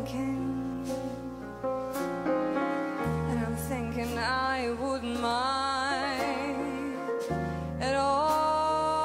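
A slow jazz ballad played live on an Estonia grand piano over long-held low bass notes, which change twice. From about the middle, a woman's voice sings long notes with wide vibrato, ending on a held note.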